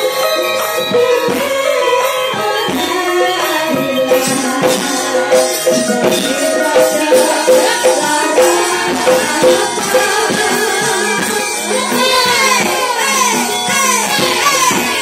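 Javanese gamelan music with female sinden singers singing through microphones over the ensemble. The vocal line wavers and slides in ornamented curves toward the end.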